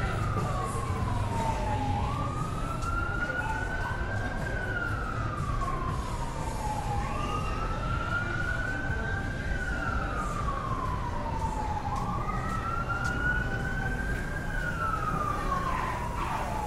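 Emergency vehicle siren on a slow wail, its pitch rising and falling about every five seconds, over a steady hum of street traffic.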